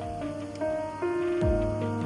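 Background music: an electronic track with a steady kick-drum beat and synth melody notes.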